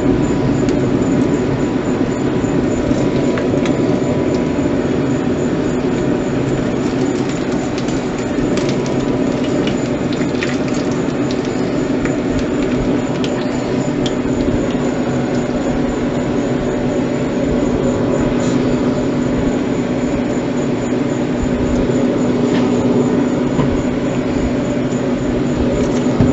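Grill running with a steady roar and scattered small crackles as the bacon-wrapped shotgun shells cook.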